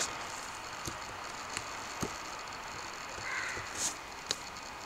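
Computer keyboard keys pressed one at a time, about six separate clicks spaced unevenly, over a faint steady hiss.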